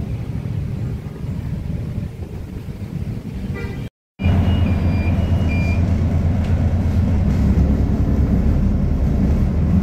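A steady low rumble of traffic; then, after a sudden cut, a louder steady low hum of a bus engine idling at a platform stop, heard from inside the bus, with a few short high beeps just after the cut.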